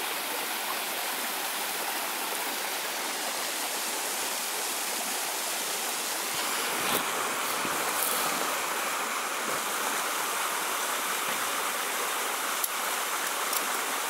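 Steady rushing of a stream, an even hiss of running water with a few faint ticks.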